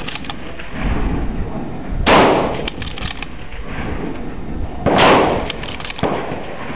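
Two shots from a 6mmBR bolt-action repeater match rifle fired in rapid succession, about three seconds apart, each a sharp crack with a short ringing tail. Quieter clicks between the shots are the bolt being worked to chamber the next round.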